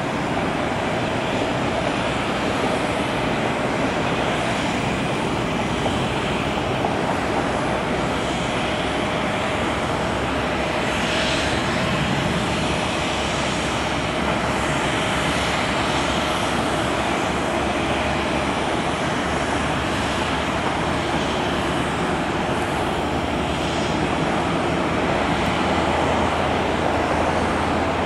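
Steady drone of jet aircraft on an airport apron, a continuous rushing noise with a faint steady whine through it.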